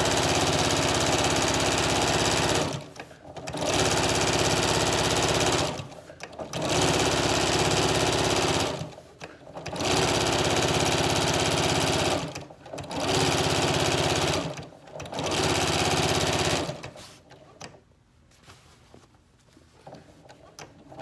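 Janome electric sewing machine running in six stitching runs of about two to three seconds each, with short pauses between them, then stopping for about four seconds near the end. It is top-stitching bias-tape trim.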